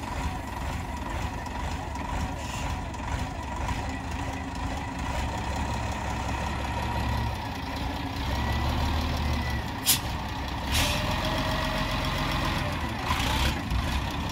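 Wheel loader's diesel engine running steadily, with a thin high whine over it and two sharp knocks about ten and eleven seconds in.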